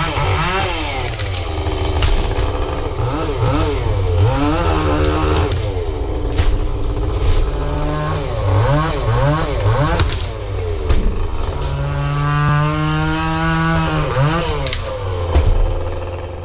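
Gas chainsaw engine revving up and dropping back over and over, as in cutting, with a steadier run about twelve seconds in before it falls off at the end.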